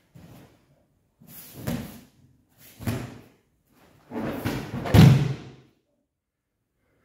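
Judo throw and breakfall on a foam judo mat: shuffling feet and gi cloth rustling, two softer thuds, then the body landing in a breakfall with a loud thud about five seconds in.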